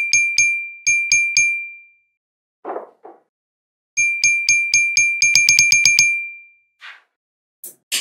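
Steel magnetic balls snapping together, each snap a sharp click with a high metallic ring. A run of six snaps, a short rustle about halfway through, then a quicker run of about a dozen that speeds up near the end.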